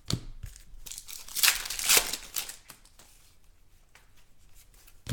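Foil trading card pack wrappers being torn open and crinkled by hand. A knock comes right at the start, and the loudest rips come about one and a half and two seconds in, followed by quieter rustling.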